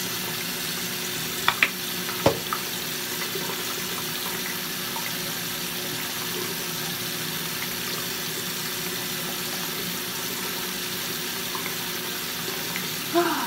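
Bathroom sink faucet running steadily into the basin, with a few light clicks about one and a half to two and a half seconds in.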